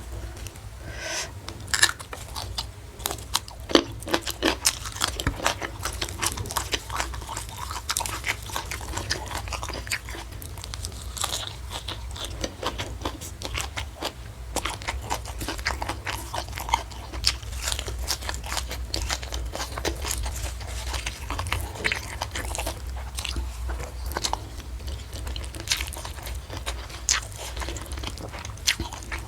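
Close-miked crunchy chewing and biting of food, many quick crisp crunches and mouth sounds throughout, over a low steady hum.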